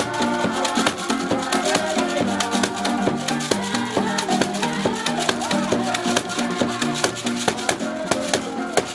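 Marimba ensemble of several wooden marimbas playing a busy, interlocking groove, with a shaker rattling along.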